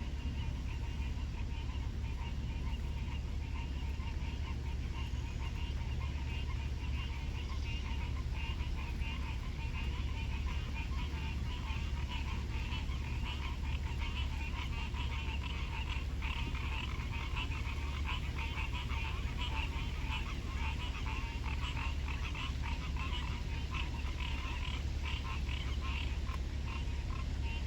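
A chorus of frogs calling: a dense, rapid pulsing trill that grows thicker in the second half, over a steady low hum.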